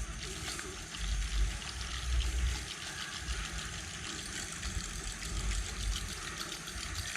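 Steady splashing, churning water noise, with low rumbles about a second in and again about two seconds in.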